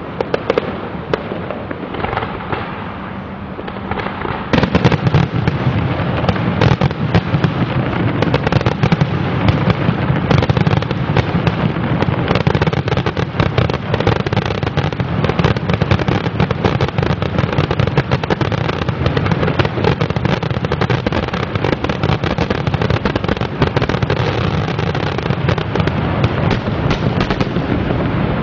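Fireworks display: aerial shells bursting with crackle, thickening sharply about four and a half seconds in into a continuous, rapid barrage of bangs.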